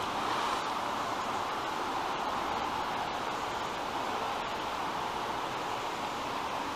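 Steady rushing background noise at an even level, with no distinct sounds in it.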